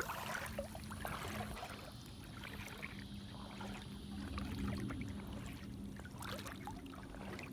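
Floodwater sloshing and trickling with small irregular splashes as someone moves through it, over a steady low hum.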